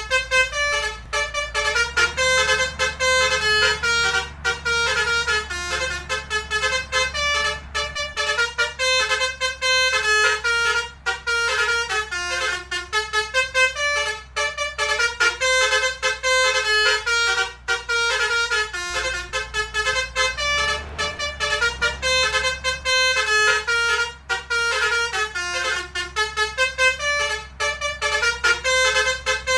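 Indonesian 'telolet' multi-tone bus horn playing a quick, continuous run of melodic toots, stepping from note to note several times a second, over a steady low rumble.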